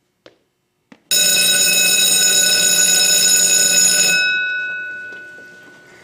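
Electric school bell ringing loudly for about three seconds, starting about a second in, then stopping and ringing down over the next second: the bell for the change of classes.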